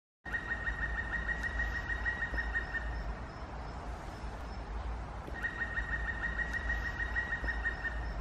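Birdsong: a bird sings a fast trill of rapid repeated notes, about seven a second, twice, each lasting about two and a half seconds. Another bird chirps faintly and high in between, over a steady low rumble.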